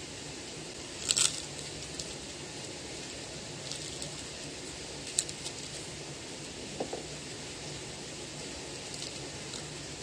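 A person biting and chewing food close to the microphone. There is a sharp crunch about a second in and a few fainter clicks later, over a steady low hiss.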